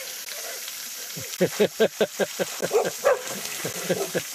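A dog barking excitedly: a fast run of about a dozen barks starting about a second in, then a few more scattered barks near the end.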